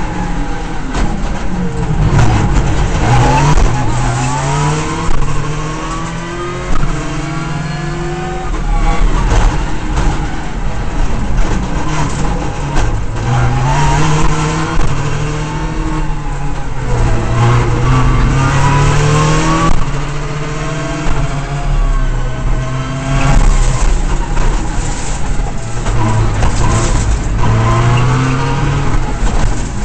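Subaru Impreza S14 WRC rally car's turbocharged flat-four engine, heard from inside the car at stage pace. It climbs in pitch again and again through the gears and drops back at each shift or lift, over loud road and drivetrain noise.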